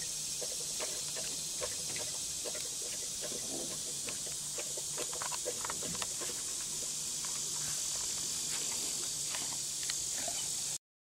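Outdoor summer background of a steady, high insect drone, with scattered light clicks and taps. The sound cuts off abruptly near the end.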